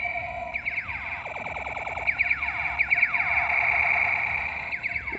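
Battery-powered light-up propeller toy gun playing its electronic firing sound effect: rapid runs of falling laser-like zaps over a steady electronic tone, alarm-like.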